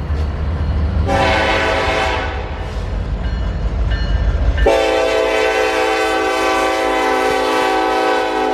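Diesel locomotive air horns. A short horn blast about a second in sounds over the low rumble of a moving train. About halfway through the rumble cuts off suddenly and a louder horn chord begins, held steadily to the end.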